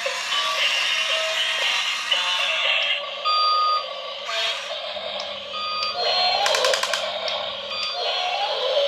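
Electronic music with beeping synthetic tones, and a brief run of rapid clicks about two-thirds of the way through.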